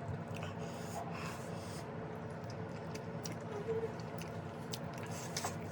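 Faint chewing and mouth sounds of someone eating chicken with her fingers, with a few small clicks over a steady low background hum.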